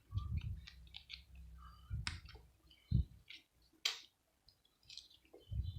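Small plastic and metal parts of a multi-socket plug adaptor clicking and knocking as they are handled and pulled apart, with dull handling thumps and one sharper knock about three seconds in.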